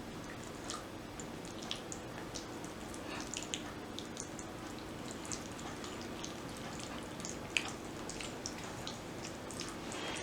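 Sparse, light wet clicks and ticks of wet food being handled during food preparation, over a steady low hum.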